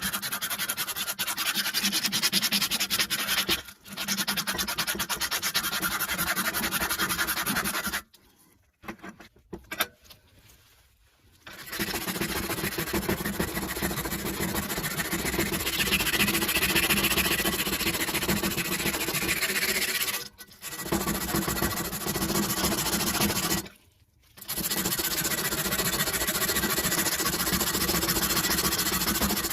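An electric sanding tool grinding an old iron spoon: a continuous abrasive rasp over a steady motor tone. It stops and restarts several times, with the longest gap about eight seconds in.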